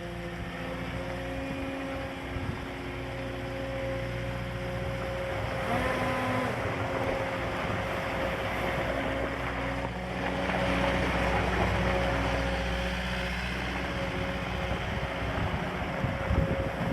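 Caterpillar 262D skid steer's diesel engine running steadily, getting louder and rougher for spells about six seconds in and again around ten to twelve seconds in as the machine works.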